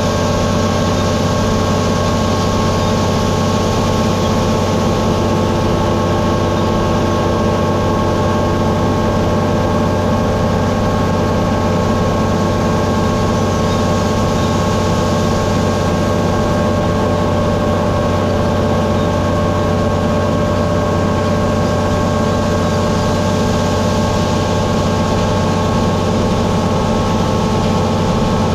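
Heavy farm machinery running steadily at constant speed: a deep, even hum with several fixed tones above it, and no change in pitch or level.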